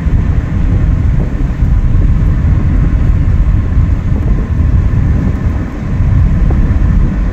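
Road noise of a moving vehicle with wind buffeting the microphone: a loud, steady low rumble that rises and falls.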